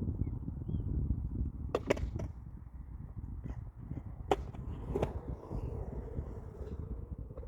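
Skateboard wheels rolling over pavement with a steady rumble, broken by several sharp clacks of the board, three in quick succession about two seconds in and two more around four to five seconds in.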